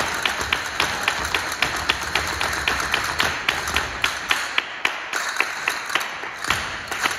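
Flamenco dancers' castanets clicking in a fast, even rhythm, about four to five sharp clicks a second.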